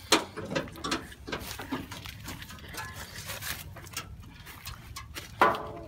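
Light clicks, knocks and rustling as the hood of a 1976 Ford Bronco is lifted and propped open by hand, with a short vocal sound, like a gasp or sob, about five and a half seconds in.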